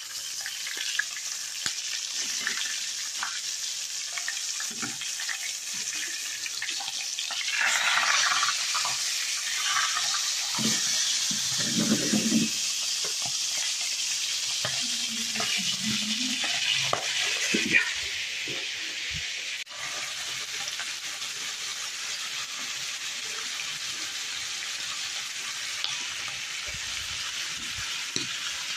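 Coiled sausage sizzling as it fries in oil in a frying pan, a steady hiss that grows louder from about eight seconds in for about ten seconds, with a few low knocks along the way.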